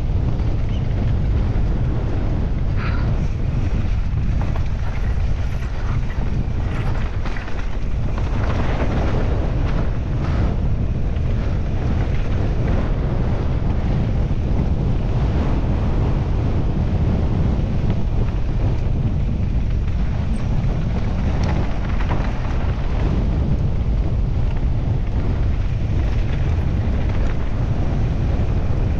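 Wind buffeting the microphone of a mountain biker's onboard camera at race speed on a rough downhill, a steady low rumble. Short knocks and rattles from the bike over rough ground come through in the first third.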